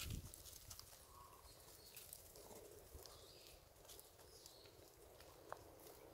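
Near silence with faint taps and rustles of macaques moving on dry leaf litter and gravel, a soft thump at the start and a brief high click near the end.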